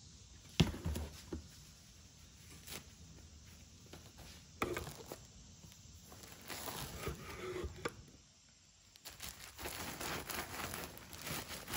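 Groceries being handled on a counter: a sharp knock about half a second in and another thump near five seconds, with plastic packaging rustling and crinkling that grows denser near the end as the bagged bread is handled.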